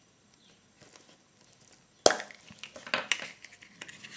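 Hollow milk-chocolate egg snapped open by hand: one sharp crack about halfway through, then a few smaller crackles as pieces of the thin shell break away from the plastic capsule inside.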